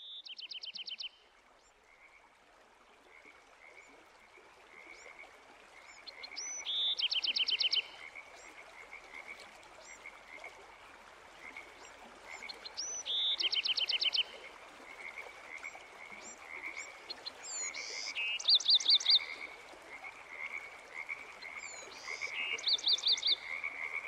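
Frogs calling: a burst of rapid pulsed notes about once every five or six seconds, over a steady chirp that repeats about twice a second, with a faint hiss underneath.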